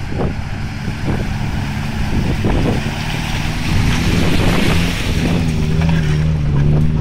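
A Suzuki SJ-series 4x4's engine running as it drives through deep mud ruts, with splashing mud and tyre noise. The hiss of mud and tyres is loudest about four to five seconds in, as the vehicle passes close by.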